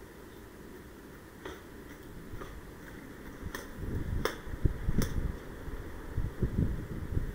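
About five sharp clicks or snaps, roughly a second apart, the loudest near the middle, over the low thumps and rustling of someone on foot moving through dry undergrowth.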